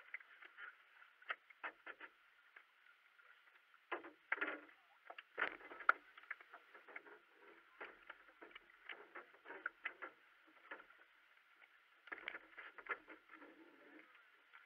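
Faint, irregular knocks, taps and scrapes from a racing kayak being handled against a stone bank as the paddler climbs into the cockpit, with small clusters of knocks about four to six seconds in and again near the end.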